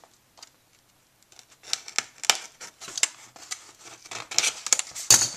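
A small box-cutter blade slicing through the sticker seal on the back of a retail packaging box. Starting about a second in, a series of short scraping strokes, the loudest near the end.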